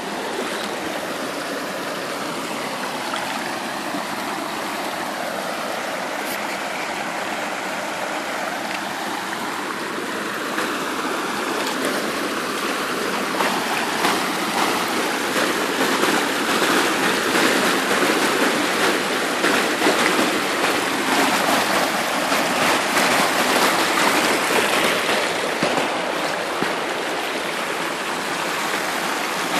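Shallow creek water running and splashing over rocks, a steady rush that grows louder from about halfway through.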